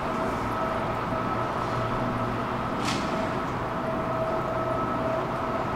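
Steady hum and rumble of a metro platform with no train at it, a constant faint tone running through, and one short sharp hiss about three seconds in.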